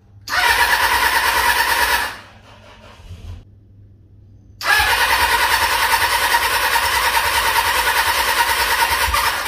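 Electric starter cranking a freshly swapped-in Kawasaki 400 cc four-cylinder engine in two tries: a short crank of about two seconds, then after a pause a longer crank of about five seconds. The engine turns over without catching, on a first start attempt with a fuel pump that was slow to kick on.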